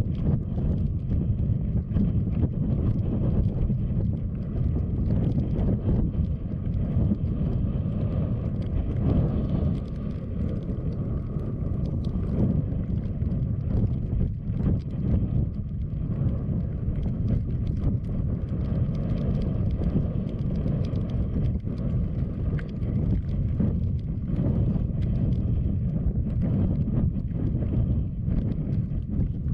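Wind buffeting the microphone: a steady low rumble that rises and falls a little in strength.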